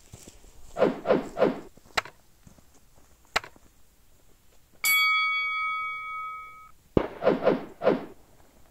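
Subscribe-button animation sound effects: three quick pops and a couple of sharp clicks, then a bell ding about five seconds in that rings for nearly two seconds. Another sharp click and three more quick pops follow near the end.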